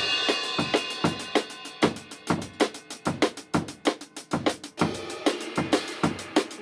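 Band music starting with a loud hit: a drum kit plays a fast, busy beat of kick, snare and rim hits under a sustained chord from guitar and keyboard.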